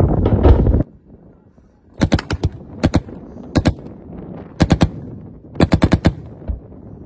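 Loud rumbling wind noise on the microphone that cuts off abruptly about a second in, then a machine gun firing five short bursts of two to five rounds each.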